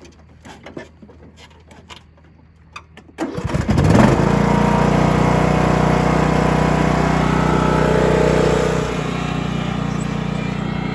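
A few light clicks and knocks, then about three seconds in a John Deere LA115 riding mower's engine cranks, catches within a second and runs steadily, easing a little near the end as the mower moves off. It fires right up because loosening the clogged vented fuel cap has relieved the vacuum in the fuel tank.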